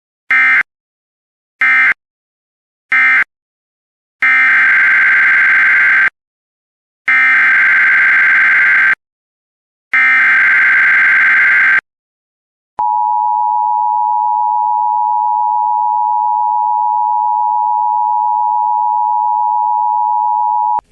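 Emergency Alert System tones. First come three short digital data bursts, then three longer buzzy SAME data bursts about two seconds each. Then, after a click, the steady two-tone EAS attention signal sounds for about eight seconds, marking the end of one alert message and the start of the next.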